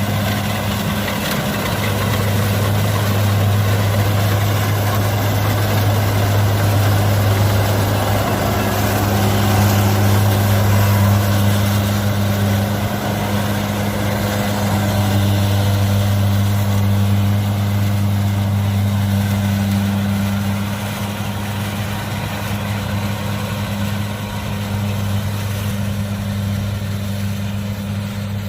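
Kubota DC-70 combine harvester running steadily while harvesting rice, a constant low diesel drone over machinery noise, easing slightly in loudness about two-thirds of the way through.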